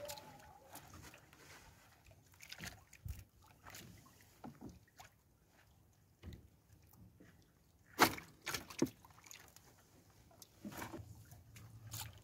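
Fishing net being hauled in and handled aboard a small wooden boat: scattered light knocks and rustles, with a sharp knock about eight seconds in followed by two smaller ones.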